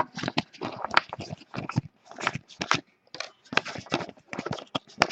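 Trading cards handled and flipped through by hand: a quick, irregular run of card clicks and rustles.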